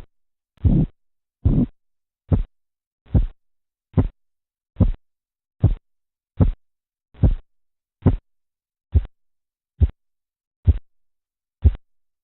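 Korotkoff sounds heard through a stethoscope over the brachial artery as the blood pressure cuff deflates: a steady train of pulse beats, about one every 0.8 seconds. The first few are longer, fuller thuds and the later ones are short, sharp taps, as the sounds change with the falling cuff pressure.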